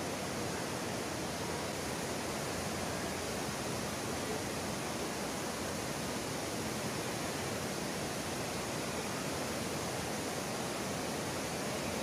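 Panasonic FM15E2 60-inch five-blade ceiling fan running at speed 4 of 5: a steady, even rush of air from the blades that does not change.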